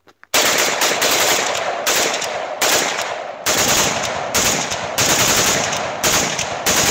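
AK-74 rifle in 5.45×39 fired in rapid strings, the shots running together, with a fresh loud string starting about every second.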